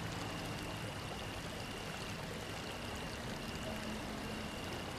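Steady rush of running water, with a faint thin high tone held throughout.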